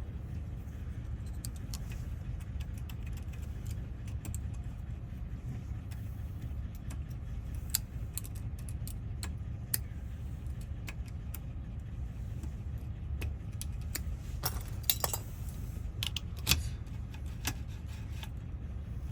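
Small metallic clicks and rattles of a key being worked in and out of a Camaro door lock cylinder whose last two wafers are corroded, scattered throughout and bunching into a quicker run of clicks near the end, over a steady low hum.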